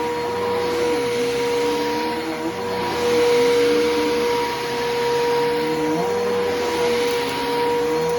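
Bissell Powerforce Helix Turbo upright vacuum cleaner running, with a steady motor whine and a lower tone that rises and falls every couple of seconds.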